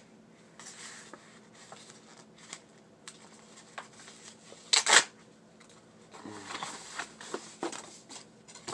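Handling noises of paper scratch-off lottery tickets: light rustles and scrapes, with one louder scrape near the middle.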